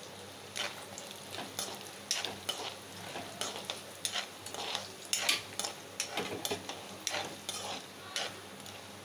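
Cashew nuts sizzling as they fry in ghee and oil in an iron kadai, stirred with a steel spoon that scrapes against the pan in short, irregular strokes over a steady frying hiss.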